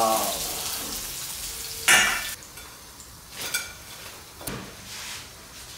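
Chicken drumsticks deep-frying, the hot oil sizzling, then a sharp ringing metal clink about two seconds in, after which the sizzle drops away. A few lighter clinks and knocks follow.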